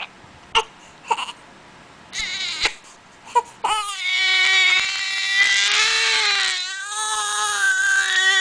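Baby with the hiccups: a few short, separate hiccup sounds, then from about halfway a long, loud crying wail that breaks briefly and carries on.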